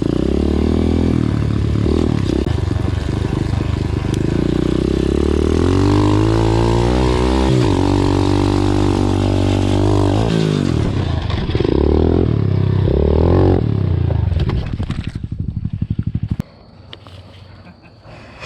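Dirt bike engine running and being revved, its pitch rising and falling several times as the throttle is goosed through a turn. The engine sound fades away about fifteen seconds in.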